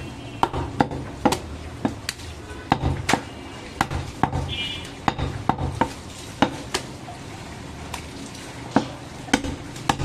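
Large butcher's knife cutting goat meat on a wooden tree-trunk chopping block, the blade knocking against the wood in sharp, irregular strikes, one to three a second.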